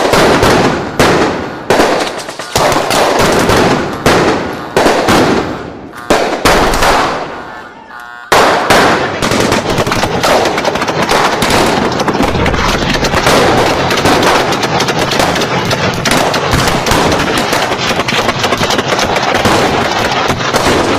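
Gunfire sound effect: separate gunshots, each with an echoing tail, about one a second, then from about eight seconds in, sustained rapid automatic fire.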